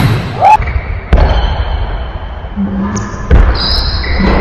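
Basketball bouncing on a hardwood gym floor, a few hard thuds, with brief high sneaker squeaks as players cut and stop, echoing in the gym.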